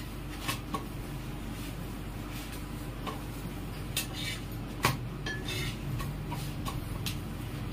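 Scattered clinks and taps of dishes and cutlery, a few seconds apart and sometimes two or three close together, over a steady low hum.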